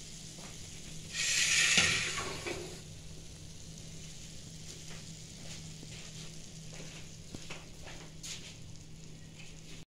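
Cauliflower in chilli sauce sizzling in a frying pan: a loud burst of sizzle about a second in, then a quieter sizzle with a few light clicks, over a low steady hum.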